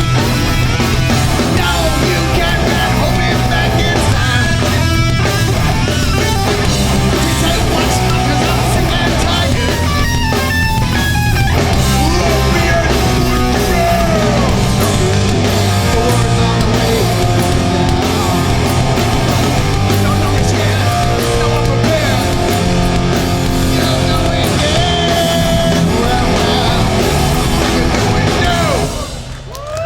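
Hardcore punk band playing live: distorted electric guitars, bass and drums at full volume. The song ends a second or so before the end, the level dropping away suddenly.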